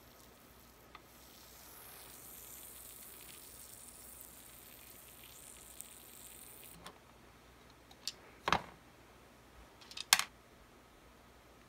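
Faint fizzing hiss of liquid dripped from a plastic pipette onto the battery contacts of a toy blaster's battery compartment, cutting off suddenly about seven seconds in. Then a few sharp clicks and knocks of hard plastic shell parts being handled, two of them louder than the rest.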